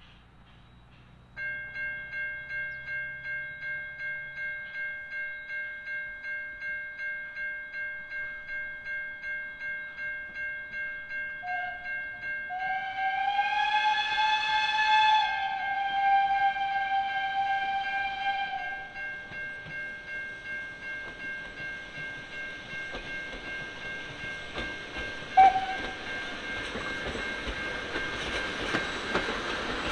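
A level crossing warning bell starts ringing about two strokes a second. A narrow-gauge steam locomotive, the South Australian Railways Yx141, sounds a long blast on its steam whistle and a short toot later. Rumble and wheel clatter build near the end as the train approaches.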